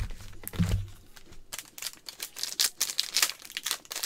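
A couple of dull thumps in the first second, then a foil trading-card pack wrapper crinkling and tearing as the pack is ripped open and handled.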